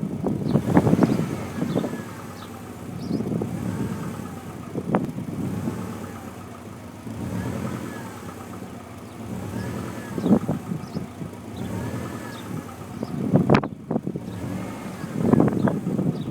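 Subaru Impreza WRX STI's turbocharged flat-four engine revved in repeated blips, each rising and falling, about six times. The owner hears a woodpecker-like tapping whenever it revs and asks whether it is piston slap.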